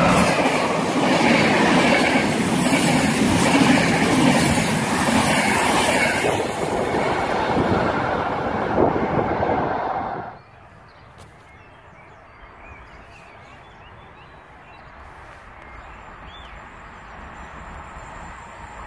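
Electric Intercity passenger train, an E402A locomotive with its coaches, running through a station at speed close by: a loud steady rolling rush of wheels on rail. It cuts off suddenly about ten seconds in, leaving quiet background with a few faint chirps, then a faint rumble growing near the end as the next train approaches.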